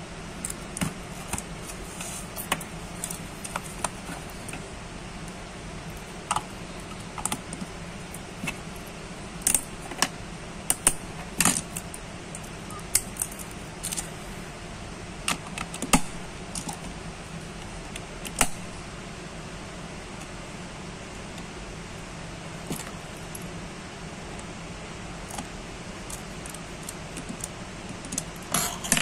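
Scattered sharp clicks and taps of batteries being pressed into a white plastic remote control's battery compartment and the plastic case being handled, over a steady low background hiss.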